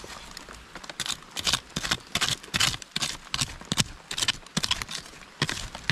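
Small hand-made digging tool, a flat metal blade on a wooden stick, chopping and scraping into soil and stones. The strokes come in a rough rhythm of about two a second, beginning about a second in.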